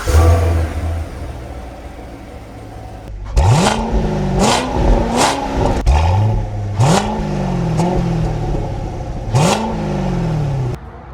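2017 Corvette Stingray's 6.2L LT1 V8 through its stock non-NPP exhaust, flaring as it starts and then settling to idle. From a few seconds in it is revved in a series of short throttle blips, each rising and falling back, and the sound cuts off near the end.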